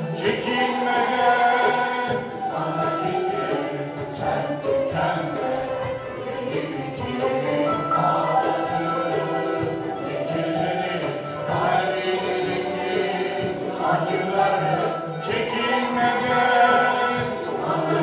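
Turkish art music ensemble performing a song: voices singing a flowing melody, with plucked ud accompaniment.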